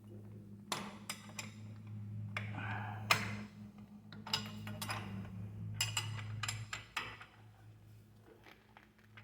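Scattered metallic clinks and knocks of hand tools against the rear disc brake caliper and bracket, sharp and irregular, over a steady low electrical hum.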